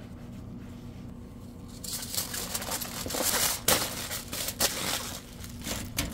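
Aluminium foil crinkling and crumpling as a hamburger is wrapped by hand. It starts about two seconds in, with a few louder crackles in the middle.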